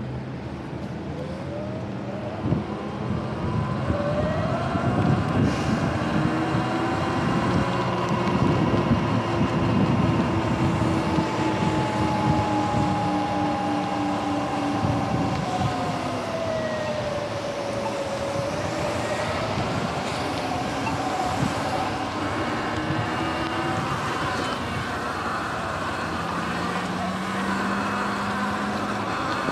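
Sur-Ron electric dirt bike being ridden: a faint motor whine that slides slowly up and down in pitch as the speed changes, over a steady bed of wind and tyre noise.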